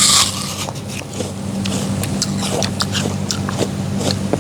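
Someone biting into and chewing a crisp home-grown apple close to the microphone: a loud crunchy bite at the very start, then a run of small sharp crackles of chewing. A steady low hum runs underneath.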